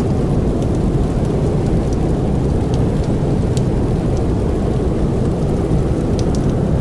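Steady low rumble of blizzard wind, with a few faint sharp crackles of burning firewood scattered through it.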